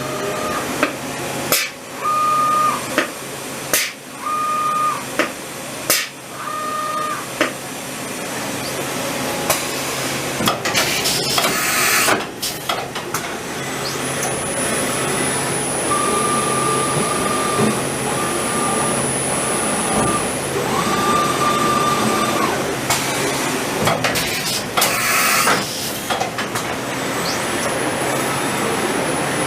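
Hurco VM20i CNC vertical machining center running. Sharp clicks or knocks come about once a second at first, with short, steady, high whining tones, and there are two brief bursts of hissing spray, one near the middle and one toward the end.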